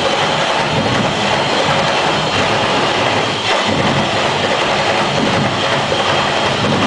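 Massed drums and percussion of a Dinagyang tribe's drum ensemble playing a steady, dense rhythm for the dancers. Loud and heavy on a compact camera's microphone.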